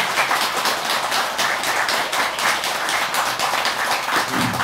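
An audience applauding: many hands clapping, dense and steady.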